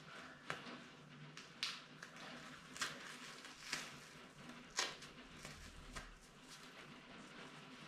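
Adhesive surgical dressing being pulled away from the skin: faint crackling and rustling, with about six sharper tearing rips roughly a second apart.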